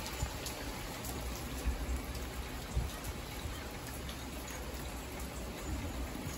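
Rain hitting a car's windshield and roof, heard inside the cabin of the moving car, over a steady low rumble of tyres on wet freeway pavement, with faint scattered ticks of drops on the glass.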